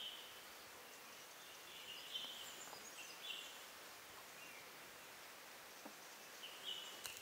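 Faint forest ambience: a steady hiss with scattered short, high bird calls, chirps and brief trills, and a few faint clicks.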